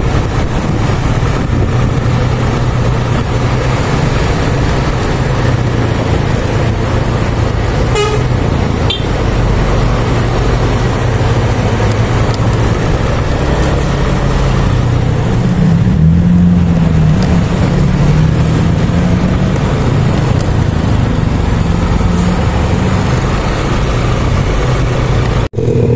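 Scania K410CB bus driving on the road, heard from close behind: a steady low engine drone over road and tyre noise. The engine note rises and grows louder for a few seconds about two-thirds of the way through, and a brief horn toot sounds about eight seconds in.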